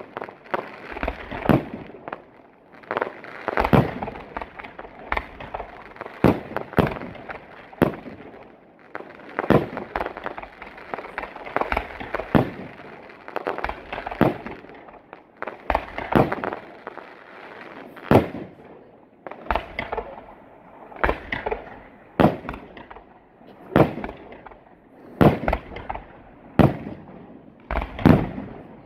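Aerial fireworks bursting overhead in an unbroken, irregular series of sharp bangs, about one a second.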